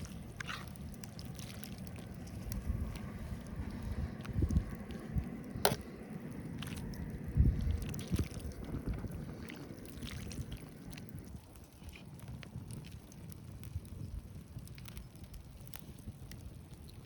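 Wind buffeting the microphone as a low, uneven rumble, with scattered sharp clicks and one louder click about six seconds in.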